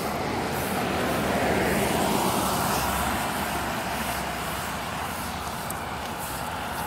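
Street traffic: a car driving past on the road, its tyre and engine noise swelling to a peak about two seconds in and then fading, over a steady background of traffic.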